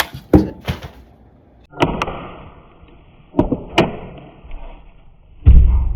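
A string of knocks and clatters from items being handled and set down, ending with a heavy thud about five and a half seconds in.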